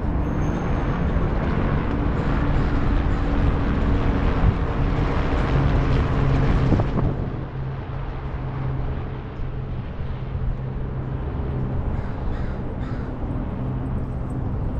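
Wind rushing over the microphone while riding a Onewheel GT, with a steady low hum from the board's hub motor; the rushing eases about seven seconds in.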